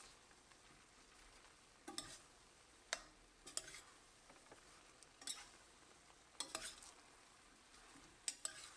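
A utensil stirring sliced apples and a just-added cornstarch slurry in a hot pan: about ten short, quiet scrapes against the pan at uneven intervals, over faint sizzling.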